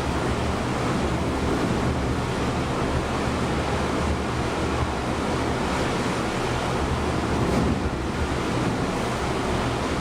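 Atlantic Ocean waves rushing in a steady, unbroken wash, mixed with wind.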